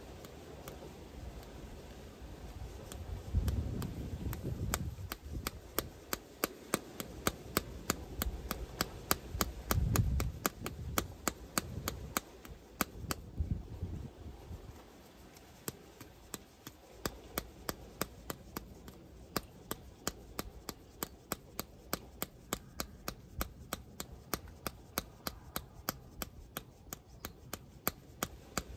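Rubber flip-flop dangling from the toes and slapping against the bare heel in a steady rhythm, about two slaps a second. A few low rumbles come in under the slaps in the first half.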